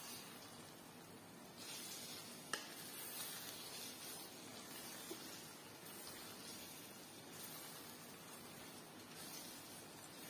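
Faint sizzling and bubbling of a thick shrimp-paste sauce simmering in a pot while a wooden spatula stirs it, the hiss swelling and easing with the stirring, and one sharp click about two and a half seconds in.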